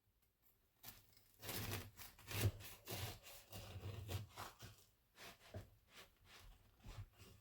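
Bread knife sawing through a freshly baked loaf: a run of rough back-and-forth strokes that thin out to a few separate ones near the end.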